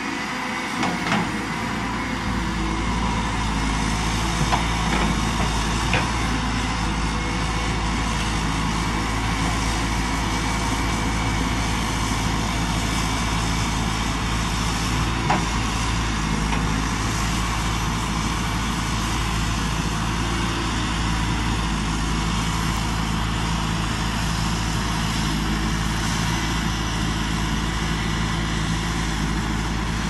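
Caterpillar 320D hydraulic excavator's diesel engine running steadily while it works, with a few short, sharp knocks.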